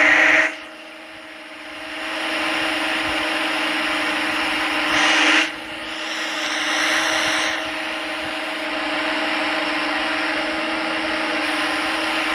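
CNC lathe running: a steady motor hum under a rushing, rubbing noise that grows and eases in stretches of a few seconds.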